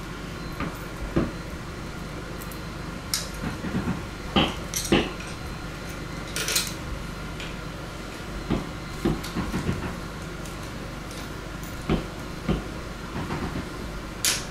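Small metal screws, nuts and bracket parts clinking and clicking as they are handled and fitted by hand to an e-bike's front fender and headlight mount. The clicks come irregularly, a dozen or so, over a steady background hum.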